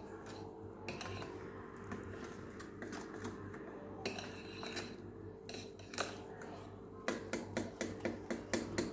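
A utensil stirring cake batter in a mixing bowl after baking powder is added, clicking against the bowl; the clicks are scattered at first, then from about seven seconds in come quickly and evenly, about four a second, as the mixing speeds up. A steady low hum sits underneath.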